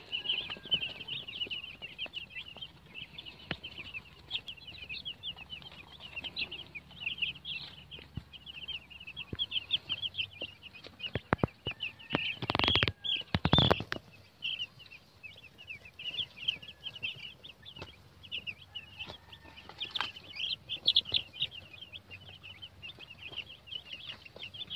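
A flock of day-old chicks peeping continuously, many short high cheeps overlapping. About halfway through come two brief, loud noises.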